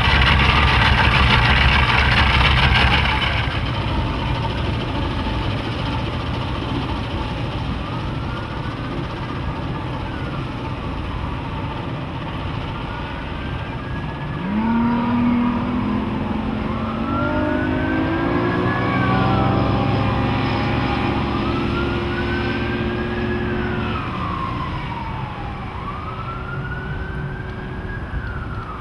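Johnson 150 HP Ocean Runner V6 two-stroke outboard running, loud and close at first, then heard from farther off as the boat moves away. About halfway through, its note rises sharply as it is throttled up. A high wail rising and falling every few seconds runs through the second half.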